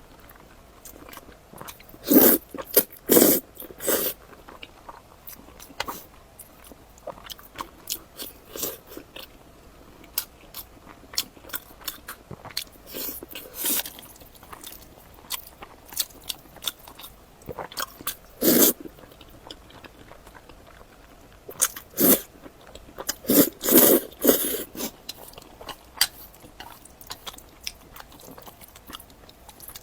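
Close-miked eating: crunchy bites and chewing, with irregular crackling crunches and a few louder bites that come in clusters.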